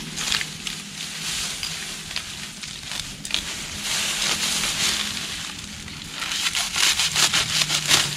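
A lemongrass clump being torn apart and hacked at the base with a machete: dry stalks and leaves rustling and crackling as the tillers and roots are pulled from the soil, with a quick run of snapping crackles near the end.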